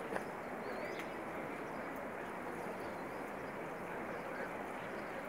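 Steady outdoor background noise with no distinct source, and a brief chirp about a second in.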